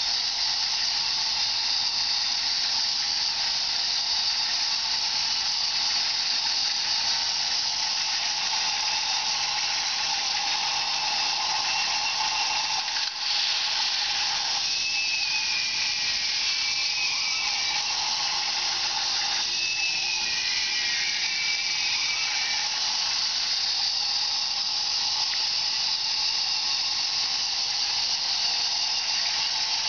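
K'nex roller coaster's motorized chain lift running, with the plastic train rolling on the track: a steady whirring hiss. Brief high squeals come twice in the middle.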